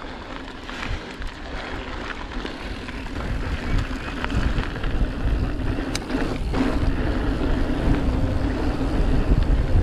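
Mountain bike being ridden along a rough wooded trail: rumble and rattle of the ride with wind buffeting the microphone, growing louder in the second half. A steady low hum joins about six and a half seconds in.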